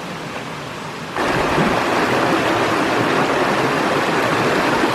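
Rushing water of a mountain stream, a steady, even rush that jumps suddenly louder about a second in.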